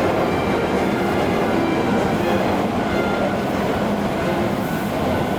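Hankyu electric train running past a level crossing: a steady, loud rumble of wheels on rails.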